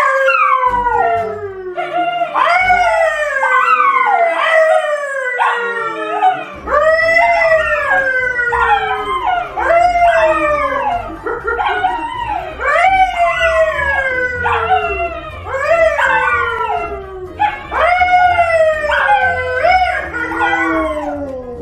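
An animal howling in a long run of pitched calls, each rising and then falling, about one a second, with a low steady backing joining about six seconds in.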